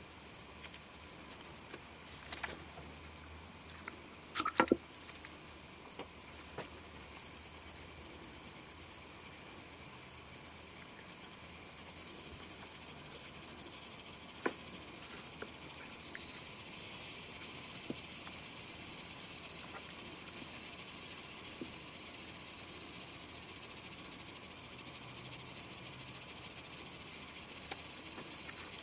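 A steady high-pitched hiss with a few faint clicks and taps, growing slightly louder about halfway through.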